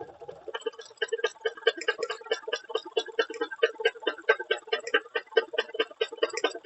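Toyota HiAce engine running with a rapid, regular knock, about six to seven sharp knocks a second: the engine knocking problem.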